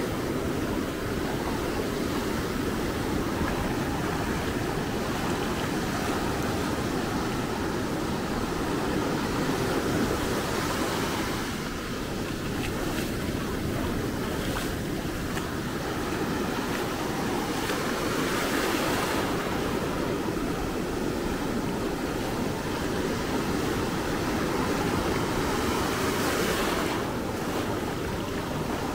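Atlantic Ocean surf breaking and washing up the beach in a steady rush, with a brighter hiss swelling every eight seconds or so as waves break.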